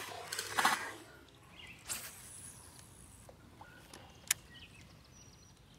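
Largemouth bass splashing and kicking at the water surface as it is let go, within the first second. A smaller splash-like noise follows about two seconds in, and a single sharp click near four seconds.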